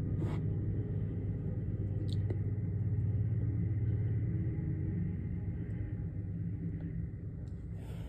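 Distant Norfolk Southern freight train rolling by: a steady low rumble that slowly fades over the last few seconds, with a few faint clicks.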